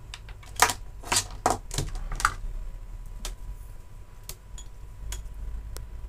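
Sharp clicks and taps of a small power-supply circuit board being handled and set down on a hard bench: five close together in the first two and a half seconds, then a few scattered ones.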